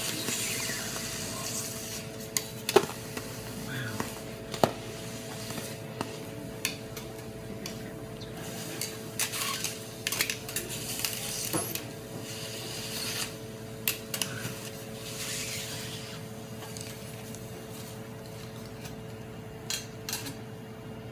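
Metal spatula and fork scraping and clinking on a steel teppanyaki griddle, with a few sharp clinks standing out over a steady hum.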